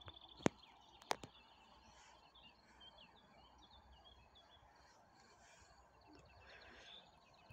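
Birds chirping in quiet open-air ambience, with a faint steady high-pitched tone throughout. Two sharp clicks about half a second and a second in are the loudest sounds.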